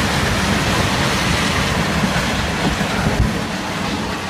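Demolition machinery at work on a building: a steady low rumble with some irregular rattling and knocks.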